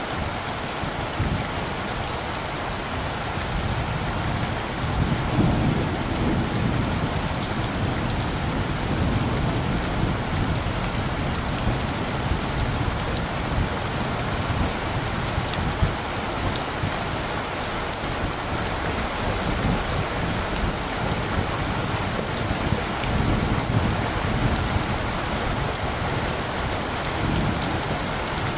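Steady rain pattering, with distant thunder rumbling low and soft several times underneath.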